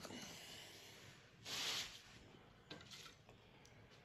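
Mostly quiet room tone, with one brief soft hiss about a second and a half in and a couple of faint clicks later.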